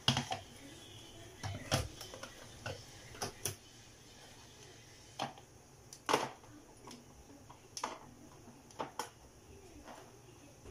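Irregular plastic clicks and knocks from a white countertop blender's jar and lid being gripped and fitted onto the base, about ten sharp taps spread unevenly over several seconds.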